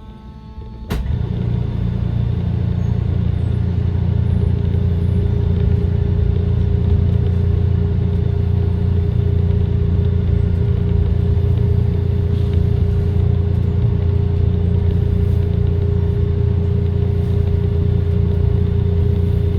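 SEPTA trolley car running: a sharp clunk about a second in, then a loud, steady low rumble with a constant whine over it.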